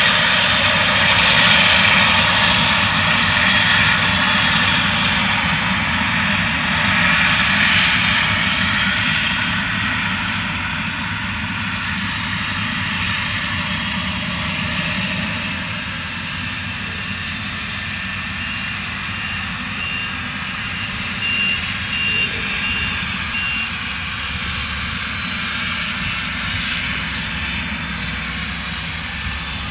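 Claas Jaguar 970 forage harvester at work chopping maize, its MAN V8 engine running under load as a steady heavy drone. The sound eases off slowly over the span.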